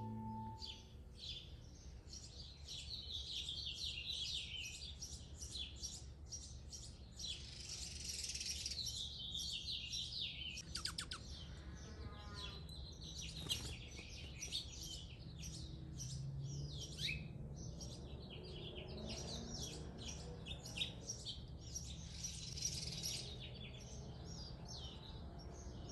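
Several wild birds chirping and singing together, many short high calls overlapping, with a quick trill about eleven seconds in.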